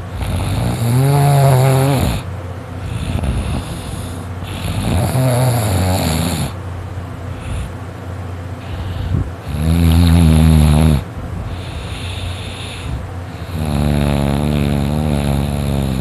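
A sleeping person snoring loudly: long, pitched, rattling snores a few seconds apart, with breathing between them. The loudest snore comes near the middle.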